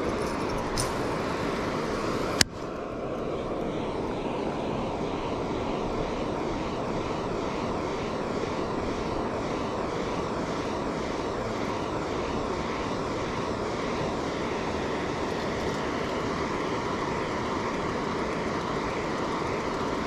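Steady rushing of water pouring from a dam spillway outlet, an even noise without any rhythm. One sharp click sounds about two and a half seconds in.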